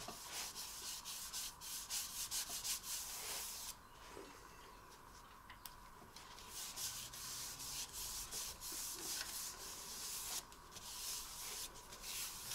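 Paper towel rubbing sanding sealer over the face of a turned wood and resin disc, in runs of quick wiping strokes. The wiping stops for about two and a half seconds a few seconds in, then starts again.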